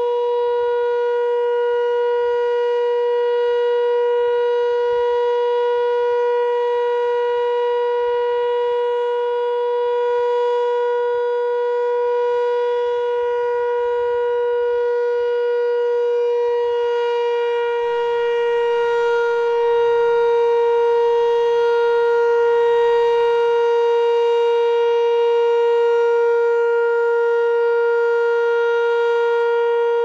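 Federal Signal single-tone electromechanical warning siren sounding during its monthly test, held at a steady pitch with no rise or fall. It gets slightly louder a little past halfway through.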